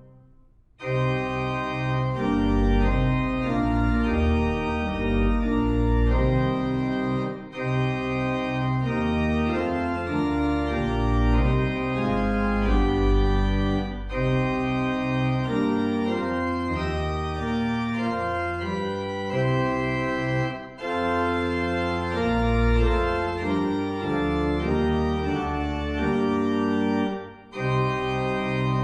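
Organ playing a hymn tune in full sustained chords with a moving bass line, with brief breaks between phrases.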